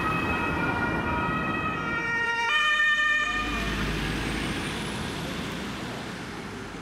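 German ambulance's two-tone siren, stepping in pitch and then cutting off about three seconds in. The ambulance van's engine and tyres go on as it drives past and fades away.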